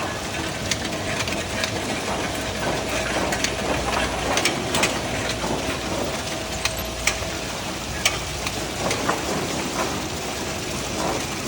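Egg grading and packing machine running: a steady mechanical whir with a faint steady tone and frequent irregular clicks and rattles from its moving parts.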